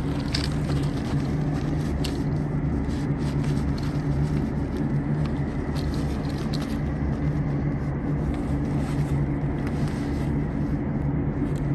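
Steady low mechanical hum with faint scattered clicks and rustles.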